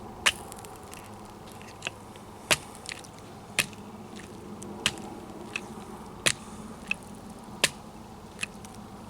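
Freshly melted plastic cup crackling, with about a dozen sharp, irregular pops and clicks as the plastic settles after its flame is put out.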